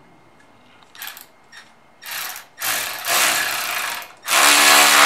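Cordless electric ratchet with a 5/16 socket driving a bolt through a metal bracket into a wall stud: a few short spurts about two seconds in, then running steadily from about four seconds in.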